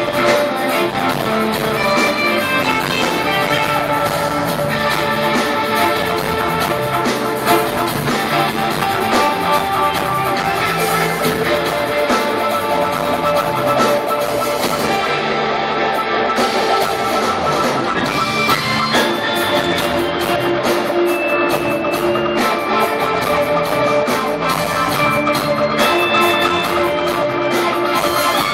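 Rock band playing live on amplified electric guitars, keyboard and drum kit, one continuous loud song. About halfway through, the cymbals drop out briefly.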